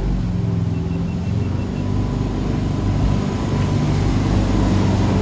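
Jet boat engine running steadily under load, over the rush and splash of whitewater rapids.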